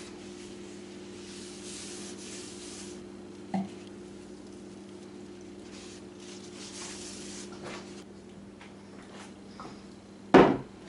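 Paper napkin rubbing on a wooden tabletop as a small spill is wiped up, with a light knock a few seconds in. Near the end a glass bottle is set down on the table with a loud thump. A steady low hum stops about two thirds of the way through.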